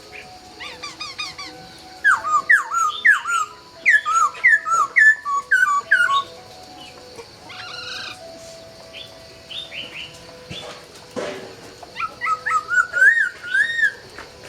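Laughingthrush (khướu) singing: runs of loud, rapid whistled notes that swoop down and back up, with a quieter stretch of scattered notes in the middle. A short knock about eleven seconds in.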